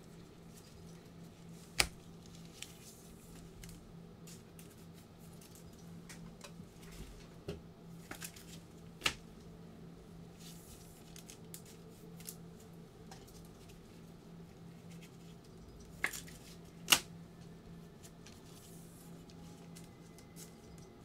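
Trading cards being handled and set down with gloved hands: soft rustling and sliding with a few sharp clicks, about 2 and 9 seconds in and a close pair near the end, the last the loudest. A faint steady low hum runs underneath.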